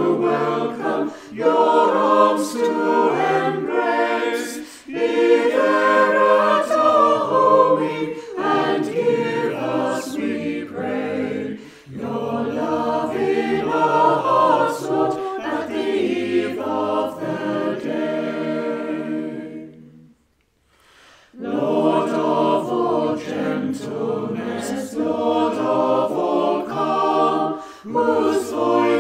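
A choir singing a hymn, with a brief pause about twenty seconds in before the singing resumes.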